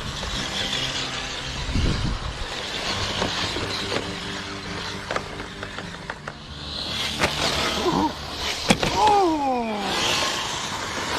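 Small electric RC rock crawler driving over rock: a steady motor hum with a few sharp knocks of tyres and chassis on stone. A pair of falling tones comes a little past halfway.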